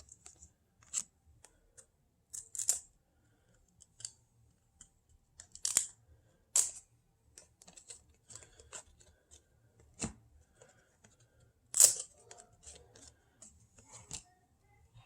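Cardboard trading cards being flipped through by hand, one after another: irregular sharp snaps and short crisp slides of card stock, the loudest about twelve seconds in.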